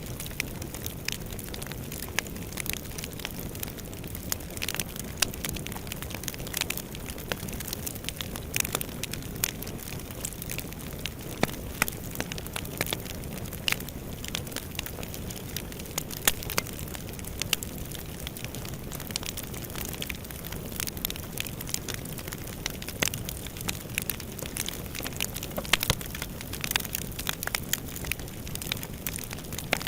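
Fire burning in a fireplace: a steady low rush of flames with frequent, irregular sharp crackles and pops.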